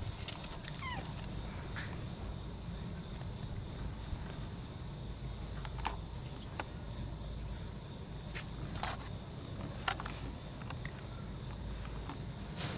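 Insects chirring steadily in one high-pitched band, with a few short clicks and a low rumble from the handheld camera underneath.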